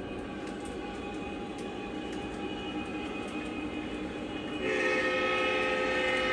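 Lionel Legacy diesel locomotive's onboard sound system: a steady diesel engine rumble with light clicks. About two-thirds of the way in, a louder multi-note air horn chord starts and holds.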